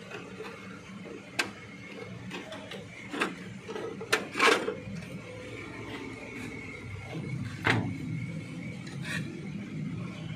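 Scattered clicks and knocks from hands handling parts inside a CNC machine's electrical cabinet, the loudest a cluster about halfway through and another knock a few seconds later, over a steady machine hum with a faint high whine.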